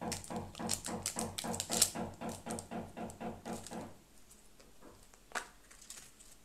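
A voice making a rapid, even run of short pitched sounds, about five a second, for about four seconds. About five seconds in comes a single sharp click as a plastic surprise egg snaps open.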